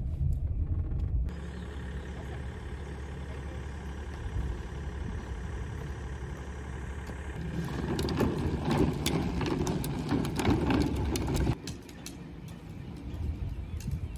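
Steady low car engine hum heard from inside the cabin. About halfway through it gives way to a wheeled cooler pulled over rough asphalt, its wheels rattling and clicking for a few seconds, then cuts off suddenly to quieter outdoor background.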